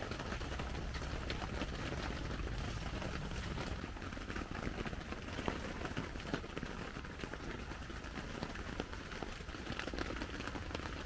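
Heavy rain falling on a tent: a steady hiss of drops with many small, sharp taps scattered through it.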